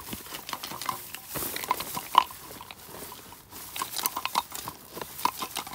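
A walking catfish (cá trê) thrashing in a fish trap as it is handled: a string of short clicks and rustles, with brief squeaky grunts scattered through.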